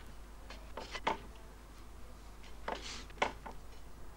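A metal painting knife scraping and dabbing thick oil paint on canvas, with several short strokes in two bunches, about a second in and again about three seconds in.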